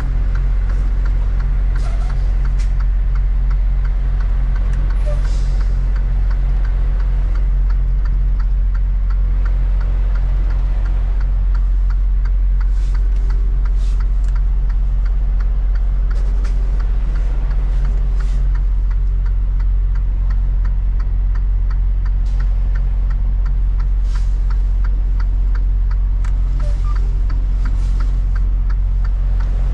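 Semi truck's diesel engine idling, heard from inside the cab as a steady low hum with a fast, even light ticking over it.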